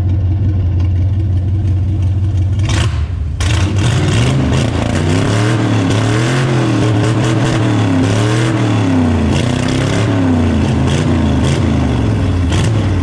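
Vintage race car engine running through an open exhaust, idling loudly, then revved up and down repeatedly from about four seconds in. It has a little stumble from being cold-blooded.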